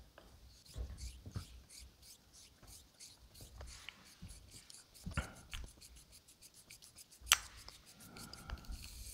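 Straight razor blade stroked in X strokes across a wet Japanese natural finishing stone with nagura slurry: faint, repeated rubbing and scraping, with a few soft knocks and one sharper click about seven seconds in.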